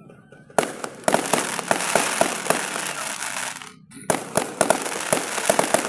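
Fireworks going off: a sharp bang about half a second in, then dense crackling with many rapid sharp pops, a brief break near the middle, then more crackling and popping.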